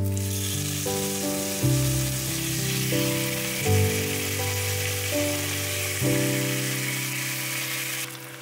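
Raw chicken pieces and garlic sizzling in a hot enamelled cast-iron pot, a steady frying hiss that cuts off near the end, under background music.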